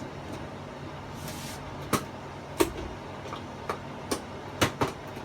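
Handling noises as a TV's mains plug and cable are fitted: about six short sharp clicks and knocks of plastic, scattered over a few seconds, over a steady low hum.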